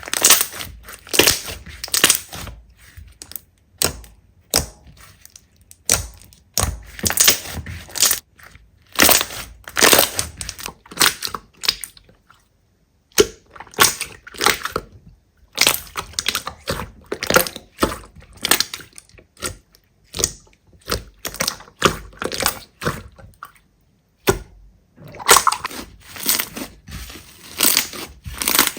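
Slime being squished and pressed, giving irregular bursts of sticky crackling and popping with brief pauses between handfuls.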